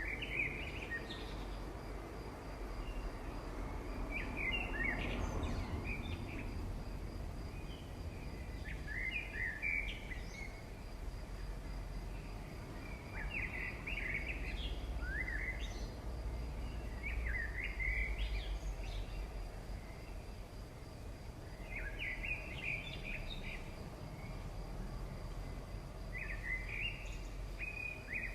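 A bird singing short chirping phrases, one every three to four seconds, over a steady low hum.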